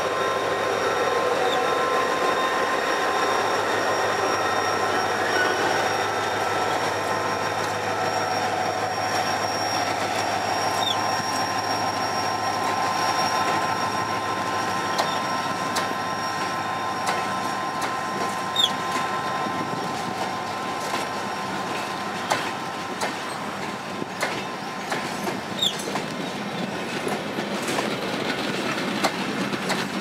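GT22 diesel-electric locomotive running as it pulls a passenger train out, its engine strongest in the first half and then fading. After that the coaches roll past with repeated wheel clicks over the rail joints and a few short, high wheel squeals.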